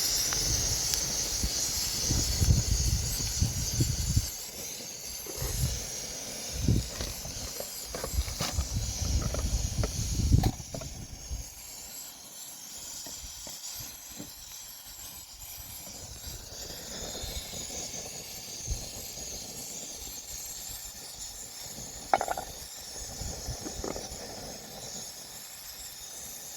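Steady hiss of food sizzling in a pan over a fire. In the first ten seconds or so there are low rumbling bumps, and a single sharp knock comes about two-thirds of the way through.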